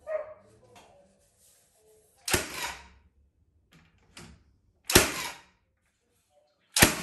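Cordless framing nailer firing nails into timber wall studs: three sharp shots about two and a half seconds apart, each with a short tail.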